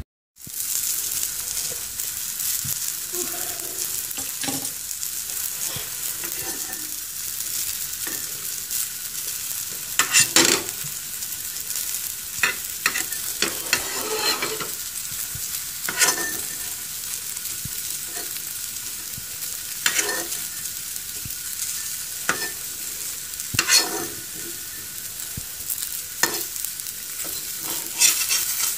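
Flour-coated vegetable slices frying in a little oil in a pan: a steady sizzle. A handful of short sharp knocks stand out from it, the tongs and spatula against the pan.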